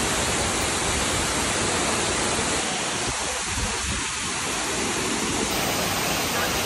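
Steady rush of water from Miin Falls, a tall waterfall pouring down a rock face into a pool.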